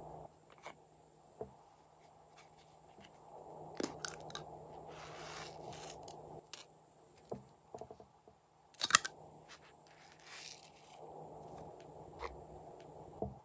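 Small plastic confetti sprinkles pouring and rattling out of a plastic tube onto slime in two short spells, with sharp clicks and taps of plastic containers being handled, the loudest about nine seconds in.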